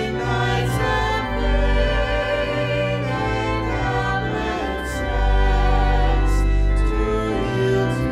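A small vocal ensemble singing a hymn with vibrato over sustained low instrumental chords.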